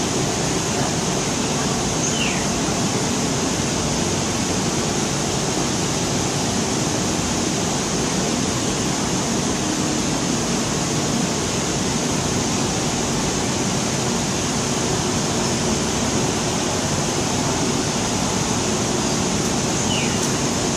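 Steady, even rushing background noise inside an indoor tropical butterfly house, with a faint short chirp about two seconds in and again near the end.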